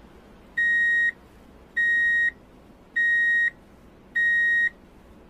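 Truck reversing alarm: a steady high-pitched beep about half a second long, repeating roughly every 1.2 seconds, four beeps in all.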